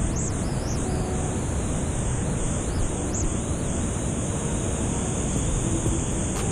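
Steady rushing of a waterfall and river: a constant, even water noise with no breaks.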